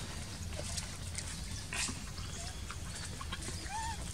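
A steady low background rumble with scattered soft clicks and a few short, faint bird calls, one rising then falling, near the end.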